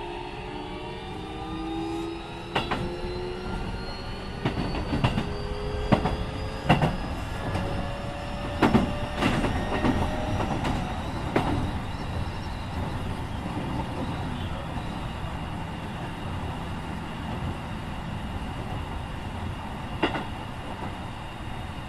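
Keikyu 1500 series electric train with Mitsubishi IGBT-VVVF traction equipment, heard from inside the car while accelerating. The inverter and motor whine rises in pitch through the first half and then levels off over the rumble of the running gear. Several sharp knocks from the wheels passing over rail joints come in the first half, and one more near the end.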